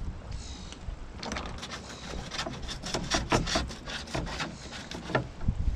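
A quick, irregular run of sharp clicks and light knocks from hand tools working loose a sailboat's bolted deck fittings, ending in a couple of dull thumps.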